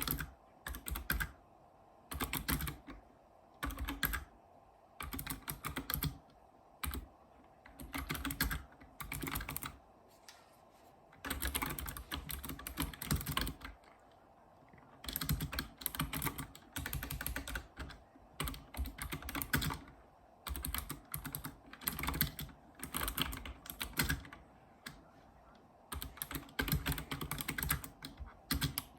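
Typing on a Razer Ornata Chroma mecha-membrane keyboard: rapid key clicks in short runs of about a second, with brief pauses between them and longer continuous stretches of typing in the middle.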